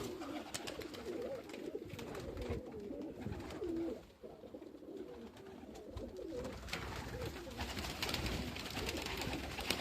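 Domestic pigeons cooing, several overlapping low coos, with a few faint clicks.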